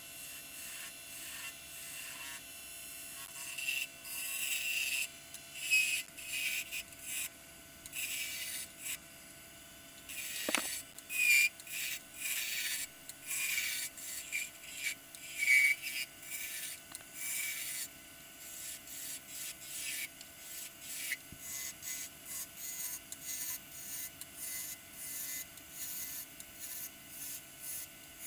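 Wood lathe turning a cherry spindle while a gouge takes cuts: short scraping cuts, one after another, over a steady hum from the lathe.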